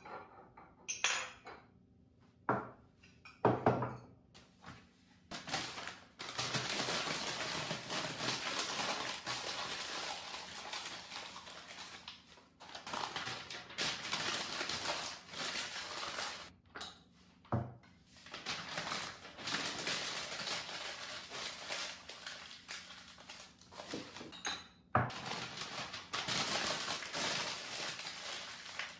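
Sheets of packing paper rustling as ceramic mugs are wrapped, in long stretches with short pauses. In the first few seconds, a few sharp knocks and clinks of the mugs being handled.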